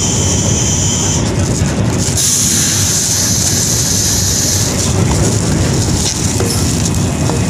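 Vande Bharat Express train running at speed, a steady running noise heard inside the coach. Plastic wrapping crinkles for a couple of seconds, from about two seconds in, as a wrapped mug is pulled out of a cardboard box.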